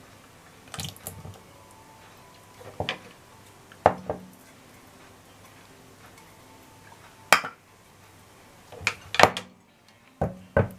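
Kitchen utensils clinking and knocking against dishes and a container: a scattering of short, separate clinks, with several close together near the end.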